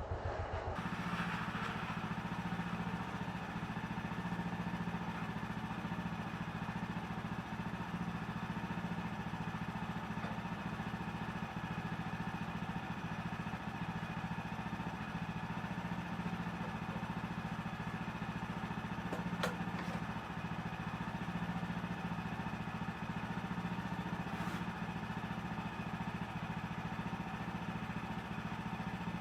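Woodland Mills HM130 Max portable bandsaw mill running, its gas engine holding a steady speed.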